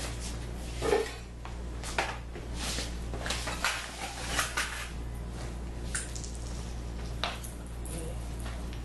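Scattered light clicks, knocks and rustles of parts being handled, the loudest about a second in, over a steady low hum.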